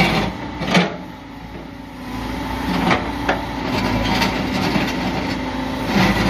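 Backhoe loader's diesel engine running under work, with a few sharp knocks and clanks from the digging gear, the loudest just under a second in.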